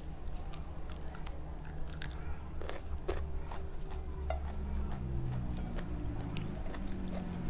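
Close-up eating sounds: chewing and wet mouth clicks and smacks from someone eating gulai tempoyak, a fermented-durian curry, with a steady high-pitched whine behind.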